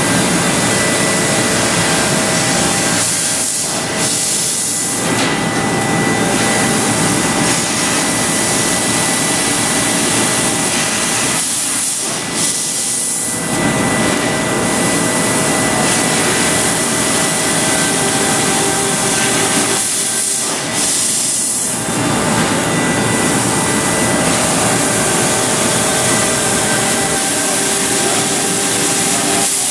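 Mazak Space Gear 48 CNC laser cutter cutting sheet steel: a loud, steady hiss with a thin, constant high whine. It eases off briefly three times.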